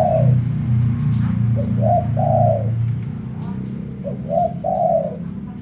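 Caged decoy dove cooing in two-note phrases, a short coo and then a longer one, repeated about every two and a half seconds, over a steady low hum.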